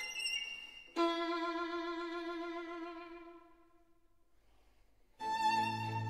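Background instrumental music: a long held note with vibrato fades away, a second of near quiet follows, and the music starts again near the end.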